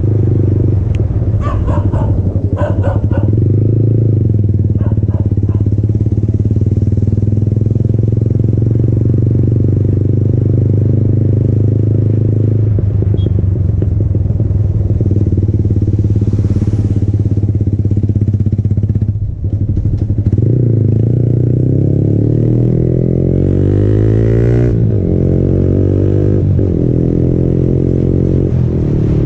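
Yamaha MT-15's single-cylinder engine running through an Akrapovic exhaust, cruising steadily on the move. A little past two-thirds of the way in the sound dips for a moment, then the engine note rises in pitch over several seconds as the bike accelerates.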